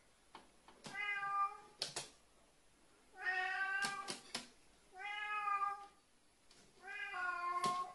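A cat meowing four times, each meow drawn out for about a second, with a few light knocks in between.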